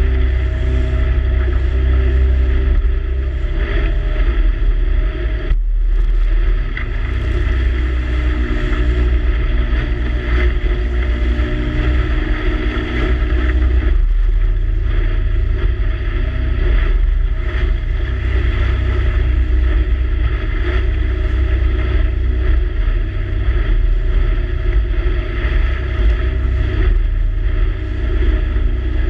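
Motorboat engine running steadily under way, a heavy low rumble with a steady hum, with wind buffeting the microphone.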